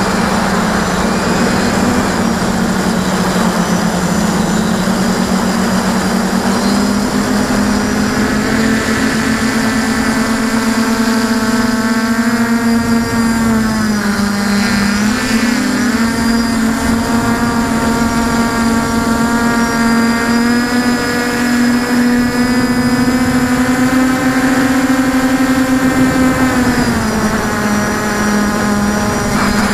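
QAV400 quadcopter's four electric motors and propellers buzzing up close with a steady, droning pitch that shifts as the throttle changes. The pitch dips and wobbles about halfway through. The sound is rougher and noisier for the first several seconds before settling into a clearer tone.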